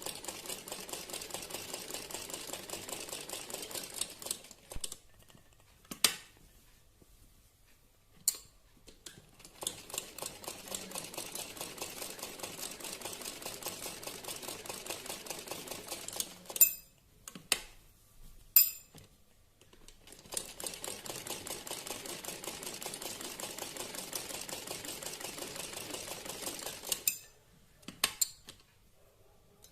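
Simple domestic sewing machine stitching in three stretches of fast, even rattling, stopping for a few seconds in between. Sharp clicks come in the pauses, where the presser foot is raised and the fabric is turned to follow the curves of the design.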